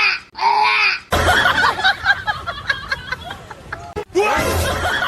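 Two short, loud cries that rise and fall in pitch, then several voices talking and laughing over one another, with another cry near the end.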